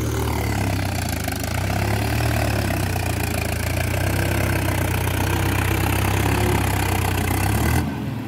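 Mahindra tractor's diesel engine running steadily while it pulls a tined cultivator through dry field soil. The level drops suddenly near the end.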